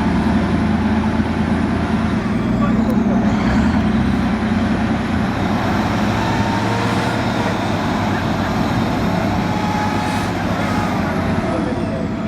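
Off-road 4x4 vehicle engine running steadily under load, a little louder in the first few seconds, with voices mixed in.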